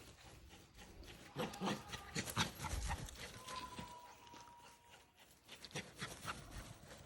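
A dog running zoomies: irregular quick thuds and scrabbles of her paws, loudest a second or two in, with a thin steady high tone for about a second and a half near the middle.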